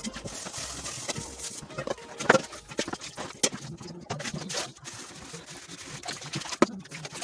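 A metal cooking pot and plastic basins knocking and clattering against each other and the steel sink as dishes are washed by hand: irregular knocks and bumps, the sharpest a little over two seconds in.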